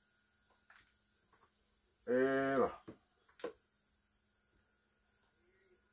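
A cricket chirping steadily in rapid, evenly spaced pulses, with a man saying "hello" about two seconds in and a sharp click about a second later.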